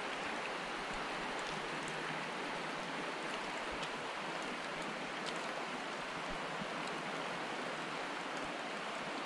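Steady rush of a shallow mountain stream running over rocks, with light rain falling and a few faint drop ticks.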